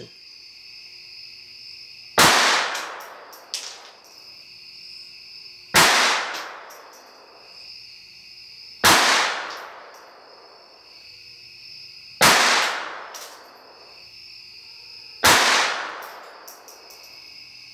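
Five single shots from a Ruger SR22 .22 LR pistol, fired about every three seconds. Each is a sharp crack followed by a reverberant decay in the room. A steady high-pitched drone runs underneath.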